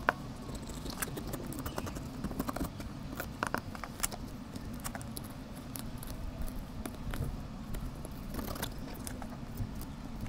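Cod being handled and positioned on a plastic cutting board: scattered light taps and knocks, one sharper knock right at the start, over a low steady background rumble.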